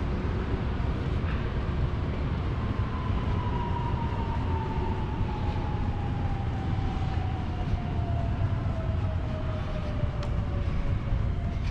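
A train running on a nearby line, its whine falling slowly in pitch over several seconds, over a steady low rumble.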